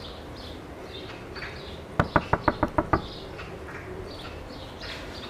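Rapid knocking on a door: seven quick raps in about a second, around two seconds in. Faint birdsong chirps throughout.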